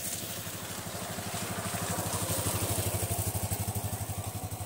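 A small engine running with a rapid, even beat, growing louder over the first two or three seconds and then holding steady.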